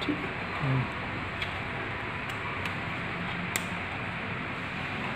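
Steady room hiss with a few faint, sharp clicks from a Canon EOS 200D DSLR being handled as its flip-out rear screen is swung open.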